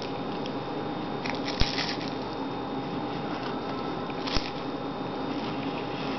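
A man biting into and chewing a sandwich: soft, wet mouth and bread sounds over a steady room hum, with two small knocks, about one and a half and four seconds in.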